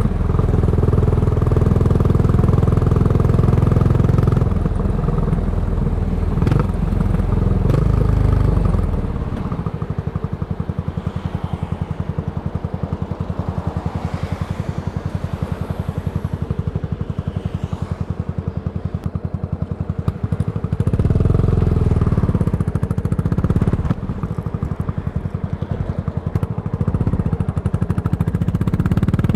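Yamaha SR400's single-cylinder four-stroke engine through a Goods tapered cone slip-on muffler, running under way. About nine seconds in it drops to a quieter idle of evenly spaced exhaust pulses. About twenty-one seconds in it picks up again as the bike pulls away.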